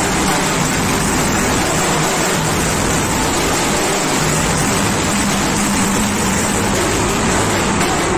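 A student drum band of a bass drum and rope-tensioned side drums beating loudly and without pause. The drumming is so close and loud that it comes through as a dense, overloaded wash.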